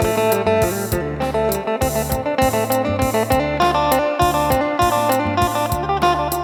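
Phin, the Thai-Lao plucked lute, playing a quick melodic line over a steady beat with deep bass notes.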